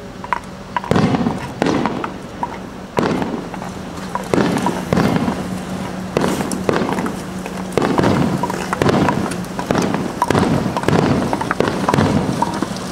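Aerial fireworks bursting in quick succession during a finale, about a dozen loud booms with crackling between them, heard from inside a car.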